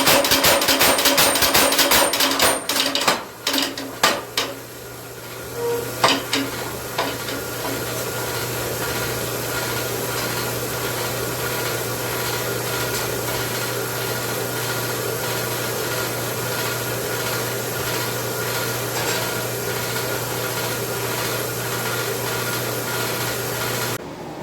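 Mechanical power hammer striking a hot railroad spike in rapid, evenly spaced blows, which stop after about two and a half seconds. A few separate knocks follow, then a steady hum that cuts off just before the end.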